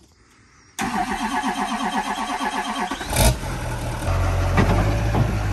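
A monster-truck pickup's engine cranking over on the starter with a rhythmic pulsing for about two seconds. It catches with a loud burst about three seconds in, then settles into a steady low idle.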